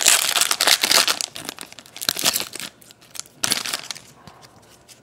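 Foil trading-card pack wrapper being torn open and crinkled by hand. The rustling is loud for the first couple of seconds, comes again briefly about three and a half seconds in, then quiets down.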